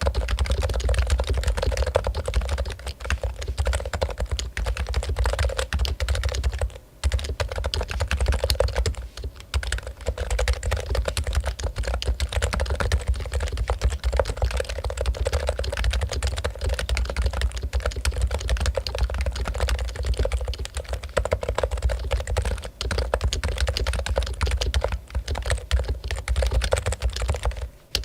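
Steady, fast typing on a Topre Realforce keyboard, its electrostatic capacitive switches (rubber domes over conical springs) giving a dense run of key strokes. The typing pauses briefly about seven seconds in and again just before the end.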